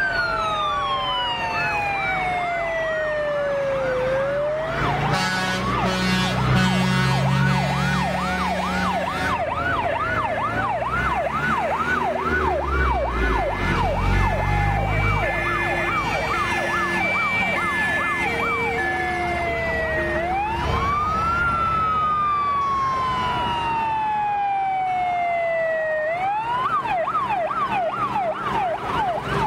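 Several fire engine sirens sounding at once as a convoy of fire trucks passes. There are slow rising-and-falling wails, fast yelping sweeps at a few per second, and a stepped two-tone hi-lo for a few seconds in the middle, over the rumble of heavy truck engines.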